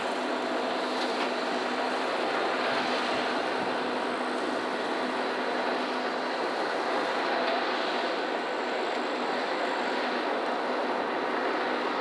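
Airbus A321-231 jetliner on final approach with its IAE V2500 turbofans running, a steady jet hiss.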